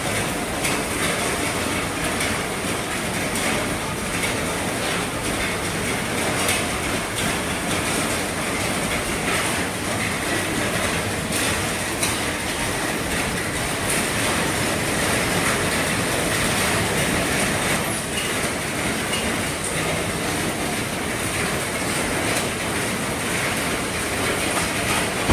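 Heavy rain falling steadily on the roof of an RV, a dense patter of drops hitting the roof with the odd louder tick.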